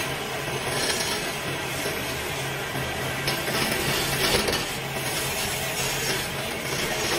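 Wood lathe running, its motor humming steadily under a constant hiss of the spinning wood being worked with a tool.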